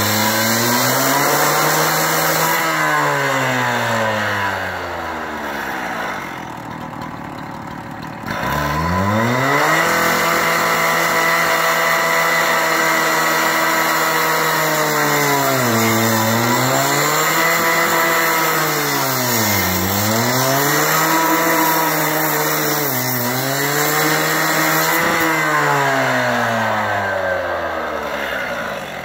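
Two-stroke handheld gas cut-off saw cutting galvanized steel pipe: the engine revs high and its pitch sags again and again as the blade bites into the pipe. It drops toward idle for a couple of seconds, revs back up sharply about eight seconds in, and winds down near the end.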